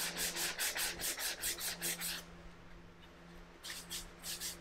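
Hand sanding the edge of a cherry board with a soft sanding pad: quick back-and-forth rubbing strokes, about four a second, rounding the edge over. The strokes pause for over a second in the middle, then start again near the end.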